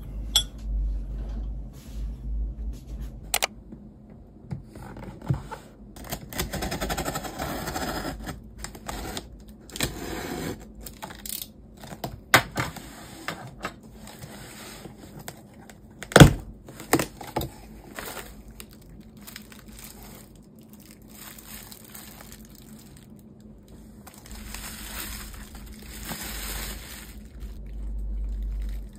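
Unboxing by hand: packing tape peeled and torn off a cardboard box, cardboard flaps scraping and bubble wrap crinkling, with scattered taps and knocks. The loudest is a single sharp knock about halfway through.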